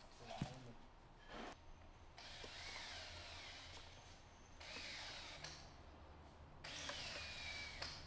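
Faint rubbing and squeaking of a plastic bracket and rubber seal being slid along a trim-tab actuator's cable and fitted by hand. It comes in three stretches of a second or two, with a light knock about half a second in.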